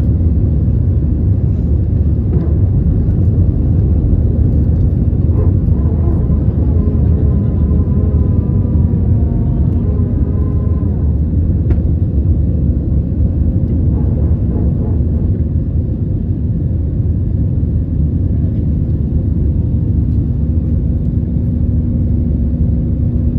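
Airbus A320 cabin noise in the initial climb after takeoff: the engines at climb thrust and the airflow over the airframe give a loud, steady low rumble.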